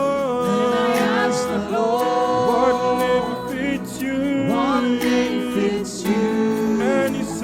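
Gospel worship singing: several voices hold long notes and slide between pitches.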